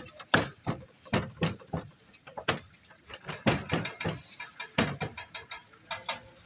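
Paratha dough being slapped, tossed and rolled out with a wooden rolling pin on a stainless-steel counter: a run of sharp, irregular slaps and knocks.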